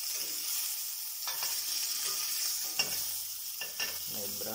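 A minced-meat burger patty sizzling as it fries in oil in a stainless steel pan. A metal spatula scrapes and knocks against the pan a few times.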